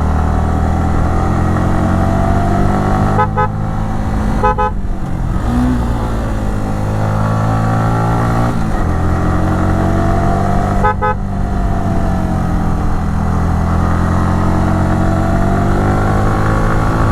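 Yamaha R15 V3's 155 cc single-cylinder engine and exhaust running under way, its note rising and falling with the throttle. There are brief drops in the sound about three, four and a half and eleven seconds in, and a sudden change of pitch about eight and a half seconds in.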